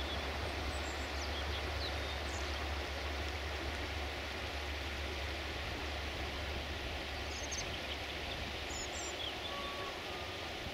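Steady rushing of a shallow, stony river, with a few faint bird chirps now and then.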